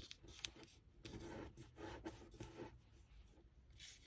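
Faint rustling and rubbing of a small sheet of origami paper as it is folded in half and the crease pressed flat with the fingers, in a few short strokes with light ticks.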